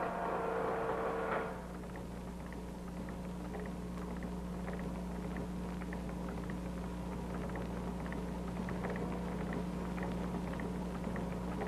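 A steady low hum with faint, irregular ticks; a louder, fuller sound drops away about a second and a half in.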